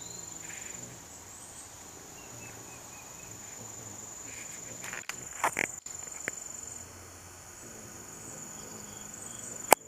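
Steady high-pitched insect trill that drops out about seven seconds in, with faint short chirps over it. A few knocks sound about halfway through, and a sharp click near the end is the loudest thing.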